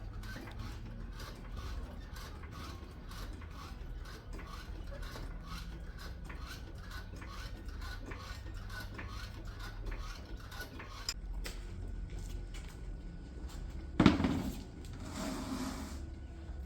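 Hand-tool work on a car: a ratchet clicking in a quick, even rhythm of about three clicks a second, then a single sharp metallic knock about fourteen seconds in, followed by a short scraping rub.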